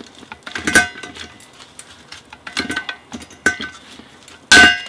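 A hand riveter setting a blind rivet through a stainless steel ladle handle: several sharp metallic clicks as the riveter's handles are squeezed, each followed by a brief ring from the stainless ladle. Near the end comes one much louder sharp snap with a strong ring, the rivet's mandrel breaking off as the rivet sets tight.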